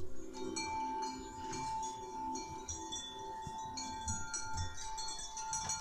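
Sound-art piece of many high, chime-like tinkling tones over one steady held tone and low sustained tones.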